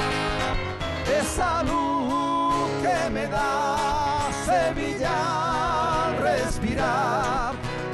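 Live band music: acoustic guitar and keyboard playing a slow song, with a wavering melody line over sustained chords.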